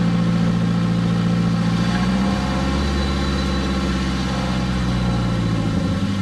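Nissan SR20DET turbocharged four-cylinder engine in a D21 pickup running steadily, its note changing about two seconds in and changing back near the end.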